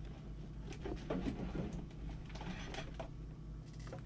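Handling noises of test equipment being moved on a workbench: irregular knocks, clicks and scrapes, over a steady low electrical hum.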